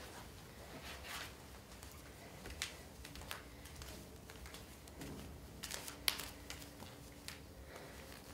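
Faint rustling and light taps of dancers moving barefoot on a studio floor and handling a cloth, over quiet room tone, with a few sharper taps a little past the middle.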